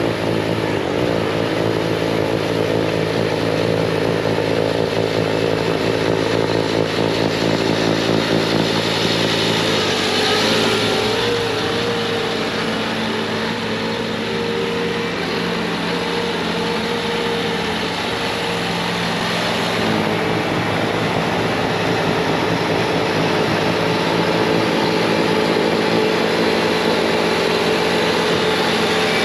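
Bobcat T66 compact track loader's diesel engine running at full throttle, driving a high-flow hydraulic snowblower attachment through wet, heavy snow. The engine note drops and shifts about ten seconds in, then runs steady again.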